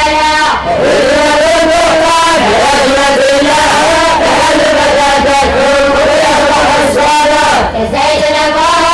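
Many students chanting a memorized Arabic text (matn) together in unison, a slow, drawn-out melodic recitation. It breaks briefly for breath about half a second in and again near the end.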